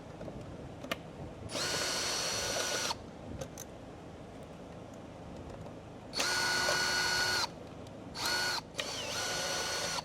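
Cordless drill-driver with an Allen bit spinning at a steady whine in four runs, backing out the screws of a plate: one of about a second and a half, another about six seconds in, then two short ones near the end.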